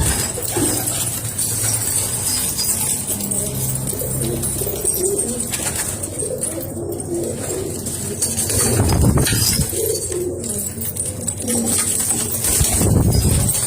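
Domestic pigeons cooing, several birds calling over one another in repeated low calls. Two louder low whooshes come about nine and thirteen seconds in.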